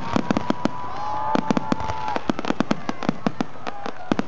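Aerial fireworks crackling: rapid, irregular sharp pops, several a second, with long whistling tones that sag slightly in pitch.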